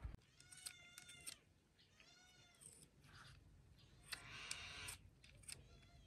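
An animal calling twice, faint and high-pitched, the second call rising and falling. A rustling noise follows for about a second, some four seconds in.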